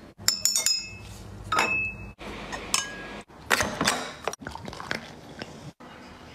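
Glass beer bottles clinking and knocking together: a quick run of sharp ringing clinks, then more scattered clinks and knocks, chopped by abrupt edits.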